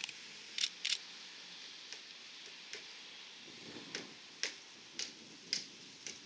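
About ten sharp taps or knocks at uneven intervals, the loudest two about half a second in, over a steady faint hiss.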